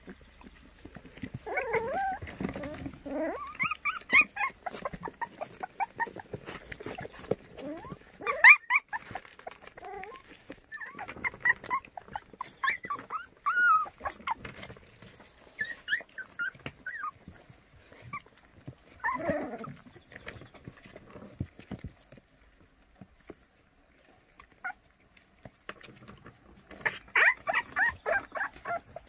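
A litter of white Korean baekgu puppies making short, high-pitched whines and squeals, with scuffling and small knocks as they tumble about. The calls come scattered throughout, fall quiet for a few seconds about three quarters through, then come in a quick run near the end.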